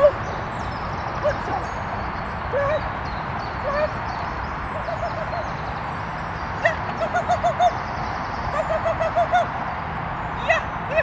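Small dog yapping with short high-pitched barks: single barks at first, then quick runs of five or six barks from about halfway through.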